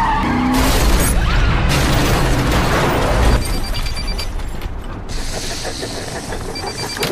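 A car crashes and overturns, with a loud crunch of impact for about three seconds. This is followed by a quieter, ratchet-like mechanical ticking from the wrecked car.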